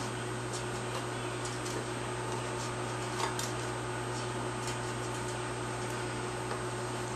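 Steady low machine hum in a small room, with a few faint light clicks scattered through it, one a little louder about three seconds in.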